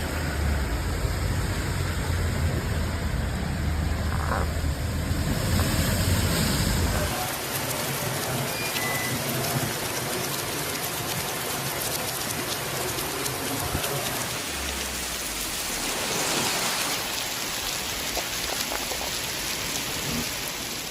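Heavy rain, a steady hiss of falling and splashing water, with a low rumble under it for roughly the first seven seconds that stops abruptly.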